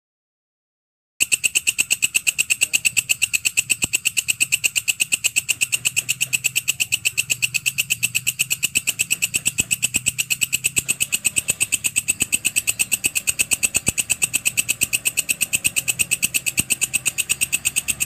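Walang kecek (belalang kerik) insect calling: a fast, even train of high-pitched chirps, about five a second, that starts about a second in.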